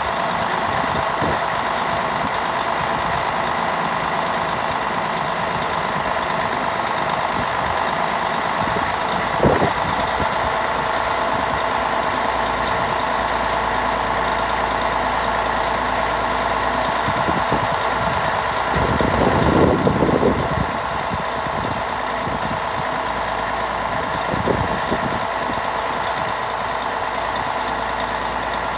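Crane truck's engine running steadily, powering the boom as it lifts the tank. A short knock about ten seconds in, a louder noisy stretch of about two seconds around twenty seconds in, and another short knock a few seconds later.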